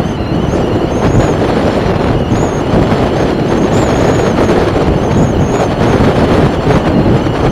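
Steady wind rush on the microphone, mixed with the running and road noise of a moving motorbike.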